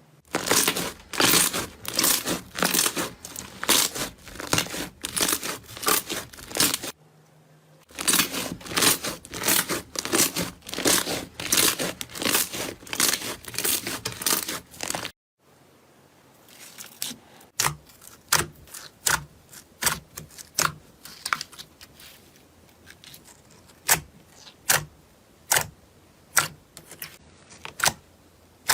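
Slime being pressed and squeezed by hand, giving dense crackling and popping clicks, with a short pause about a quarter of the way in. After a sudden cut about halfway, a second slime gives sparser, sharper clicks about one a second.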